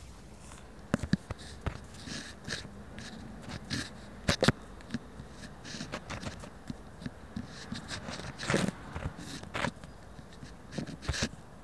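Handling noise from a phone held against clothing: fabric rubbing over the microphone with irregular clicks and knocks, the loudest a pair of sharp knocks about four seconds in.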